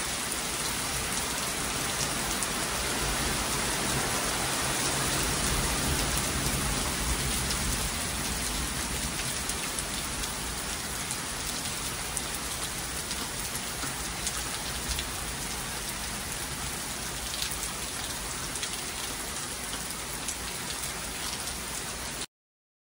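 Heavy hurricane rain pouring through a tree canopy, with gusting wind and a dense patter of drops; it swells about four to seven seconds in and cuts off suddenly near the end.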